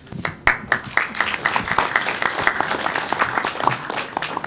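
Audience applauding: many people clapping together in a dense patter that starts at once and thins out near the end.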